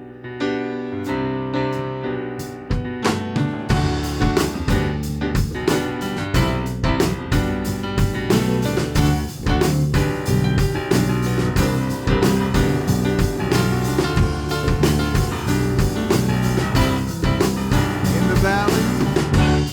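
Live worship band playing an instrumental song intro in D: keyboard alone at first, with drum kit joining about four seconds in and a steady beat from then on.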